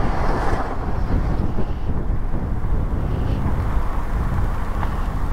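Wind rushing over the microphone on a Honda ADV150 scooter ride, with road and traffic noise beneath; the scooter is slowing down.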